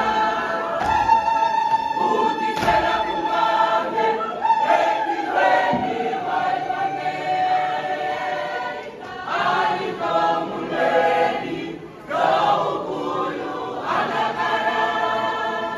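Mixed church choir of women and men singing together in harmony, with a short dip about twelve seconds in before the voices come back.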